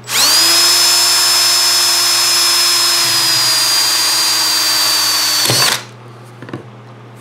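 Electric hand drill boring a hole through the wall of a 2-inch PVC pipe. It runs at steady full speed with a high whine that sags a little in pitch as the bit cuts. It stops at about five and a half seconds in as the motor winds down.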